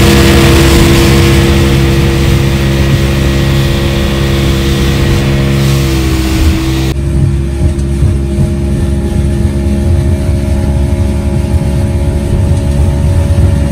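Car engine and road noise heard from inside a moving car: a steady engine drone under a loud hiss. The drone dips slightly in pitch about six seconds in, and the hiss drops away about seven seconds in.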